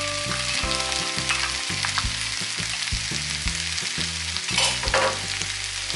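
Bell peppers, onion and freshly added fried pork cubes sizzling steadily in oil in a nonstick frying pan, with two short sharper sounds near the end.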